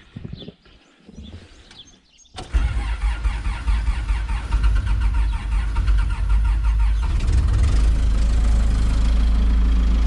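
Cold start of an old Case rough-terrain forklift's engine. It catches abruptly about two seconds in, runs unevenly at first, then settles into a steady idle about seven seconds in.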